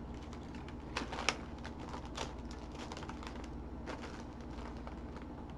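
A few light, scattered clicks and crackles of a snack's plastic packaging being handled, over a steady low hum.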